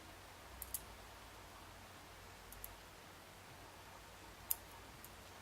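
Near silence with a few faint, sharp clicks from small metal lock parts being handled; the loudest click comes near the end.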